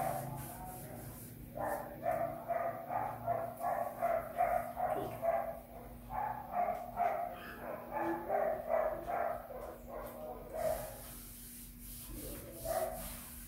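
A dog barking in a long run of short, evenly spaced barks, about two or three a second. The barking stops about ten and a half seconds in, with one more bark near the end.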